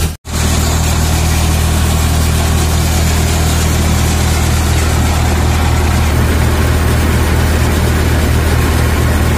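Tractor diesel engine running steadily at about 1500 rpm while powering a wheat thresher, a constant low drone with the machine's clatter over it. The sound drops out for a split second just after the start.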